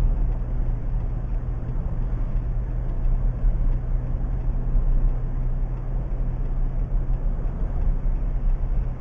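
A car driving at a steady speed, heard from inside the cabin: a steady low engine and road rumble.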